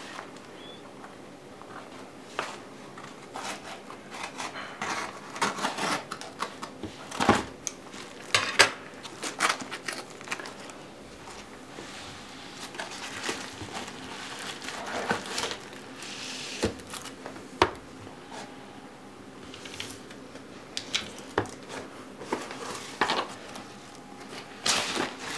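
A padded paper mailer being cut open with scissors and handled: snips and crinkling of the envelope, with scattered sharp clicks and short rustles as the package is worked open and the box inside is pulled out.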